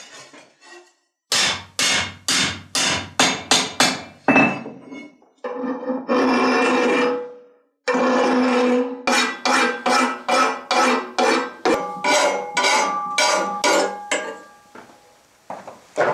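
A hand hammer striking the old iron cleaver on an anvil, about ten quick ringing blows that speed up. After a steady continuous sound of about two seconds, a file is pushed across the cleaver's tang clamped in a bench vise in regular rasping strokes, about two or three a second, with the clamped metal ringing under them.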